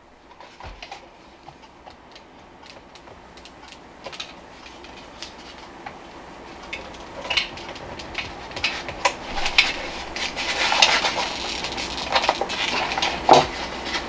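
Plastic clicks and rattles of a portable jump starter and its clamp cable being handled while the XT90 plug is worked into its port, growing louder and more frequent in the second half.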